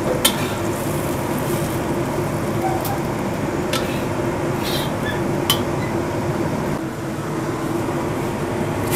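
Steady mechanical hum, with a few light clicks about a quarter second in and again around three, four and five and a half seconds.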